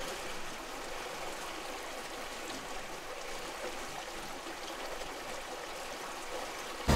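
Steady hiss and trickle of water running along the hulls of a Gemini 105Mc sailing catamaran moving under sail at about 4 knots in light wind, with no engine running.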